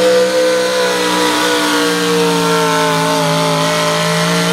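Supercharged engine of a modified pulling pickup running flat out as it drags a pulling sled. The pitch sags slightly midway and climbs back up.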